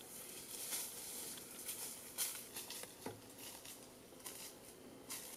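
Footsteps crunching through dry leaf litter and brushing past undergrowth, as a string of uneven crackles and rustles.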